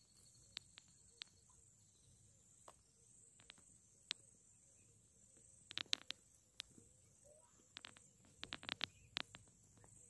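Faint, steady high-pitched insect trill, with scattered sharp clicks that bunch together about six seconds in and again near nine seconds.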